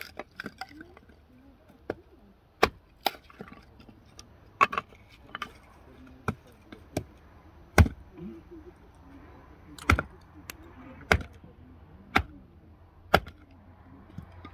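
Small hatchet splitting firewood into kindling on a chopping log: a string of sharp chops at uneven spacing, roughly one a second.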